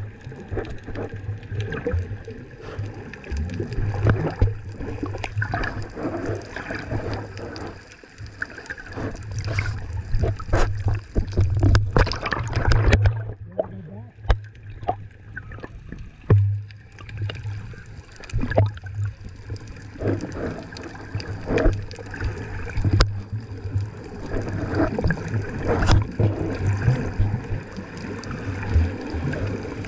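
Water splashing and gurgling around an action camera's waterproof housing held just under the sea surface among swimming snorkelers, with frequent sharp knocks and clicks against the housing.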